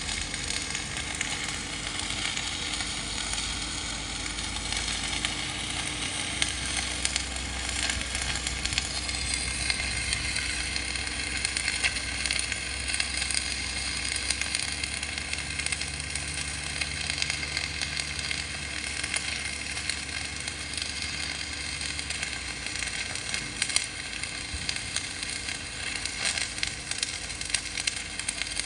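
Electric arc welding on steel: a continuous sizzling crackle of the arc, running steadily without pause.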